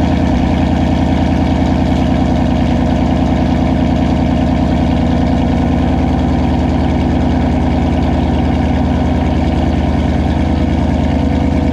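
Ford S550 Mustang's 5.0 V8 idling steadily and loud with its intake runner control valves replaced by block-off plates. An uncapped vacuum port left open is leaking, so it is running very rich.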